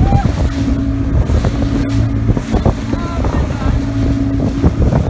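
A small motorboat's engine running steadily at speed, with wind buffeting the microphone and water rushing and splashing against the hull.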